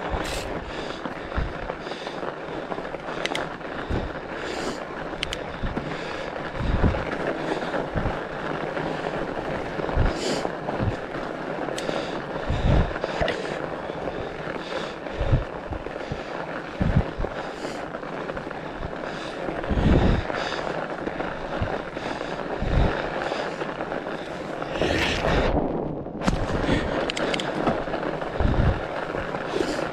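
Fat bike rolling over packed snow: the wide tyres give a steady rolling hiss, with scattered thumps and rattles as the bike goes over bumps.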